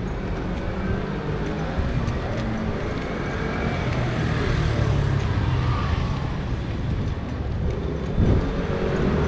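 Street traffic: motor vehicles running by with a steady low rumble that swells louder about halfway through, and a short thump near the end.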